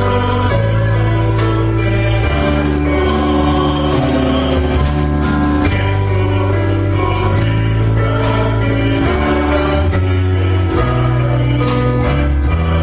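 Christian worship song: voices singing together over instrumental accompaniment with a steady beat.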